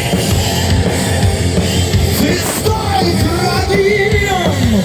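Heavy metal band playing live at full volume with drums and distorted instruments. In the second half a lead melody line slides and bends up and down in pitch, dropping at the end.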